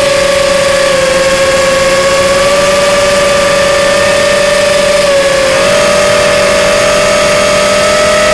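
Racing quadcopter's Cobra 2204 2300 kV brushless motors spinning Dalprop 5040 three-blade props in flight, heard from a camera mounted on the quad: a loud, steady whine whose pitch steps up slightly about five and a half seconds in.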